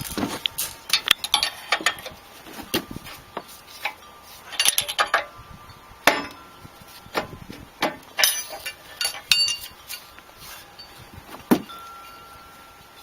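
Steel hand tools clinking, tapping and knocking against metal in an irregular series, some strikes louder and leaving a short metallic ring. This is hand work on the backhoe's blocked swing-pin grease fitting.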